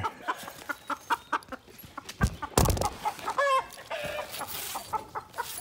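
Rooster clucking in quick short notes, about five a second, with one longer squawk that bends up and down about three and a half seconds in. A loud, short rasping burst of handling noise a little over two seconds in.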